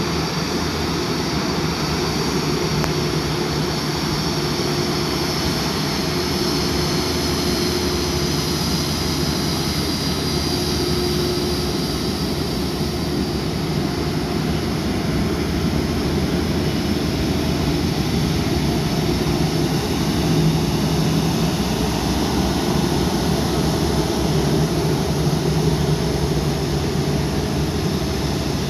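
Rolls-Royce Trent 7000 turbofans of an Airbus A330-800 at taxi power, a steady jet roar with a high whine that fades about halfway through as the airliner rolls past and turns away.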